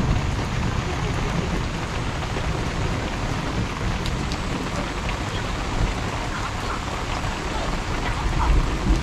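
Heavy rain pouring onto a wet street, a steady even hiss, with a low rumble swelling briefly near the end.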